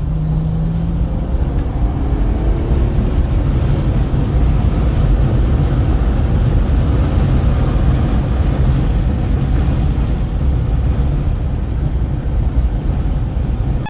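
Triple-turbo straight-six diesel of a BMW 335d running hard under load on the move, loud and steady, with a faint high whistle rising about a second in. The sound cuts off suddenly at the end.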